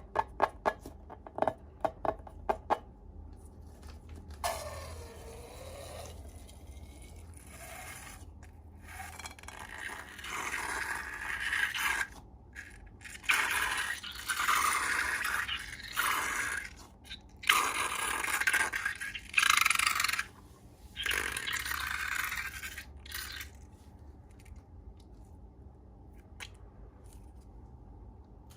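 Slime being worked by hand: a quick run of sharp clicks, then repeated scraping, squishing bursts of a second or two each, which stop a few seconds before the end.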